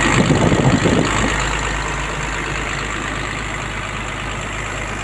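Komatsu PC200-8 excavator's common-rail diesel engine idling steadily, running again now that the defective rail pressure sensor has been replaced. A few uneven knocks or rattles come in the first second or so.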